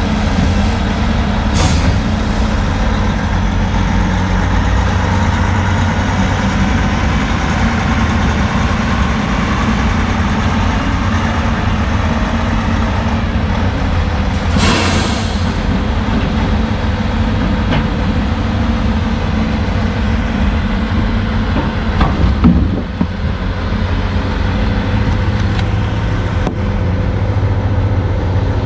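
The heavy diesel engines of a CAT log loader and a Kenworth T800 logging truck run steadily while logs are grappled off the truck. A short air hiss comes about halfway through, and a few sharp knocks follow a little later.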